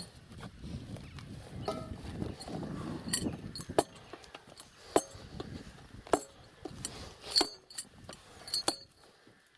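Hammer blows driving wooden stakes into a dam bank: sharp knocks with a metallic ring, coming roughly once a second through the second half.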